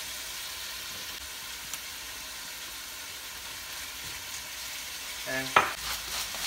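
Chicken thigh pieces sizzling steadily in a hot stainless steel pan. About five and a half seconds in there is a sharp knock, followed by a few light clicks.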